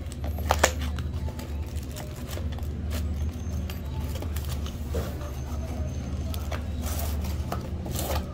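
Cardboard knife box being handled and opened: scattered taps, rubs and scrapes of the cardboard and its flap, with a sharp knock about half a second in, over a steady low hum.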